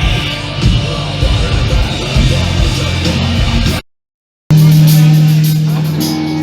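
A punk/emo band playing live and loud, with drums and distorted guitars, until it cuts off abruptly to silence about four seconds in. Half a second later, loud music resumes on a held, ringing chord.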